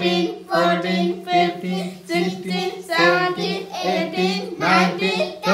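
Several voices, children's prominent, chanting numbers aloud together in a sing-song unison, one held syllable group about every half second: a New Year countdown being counted out loud.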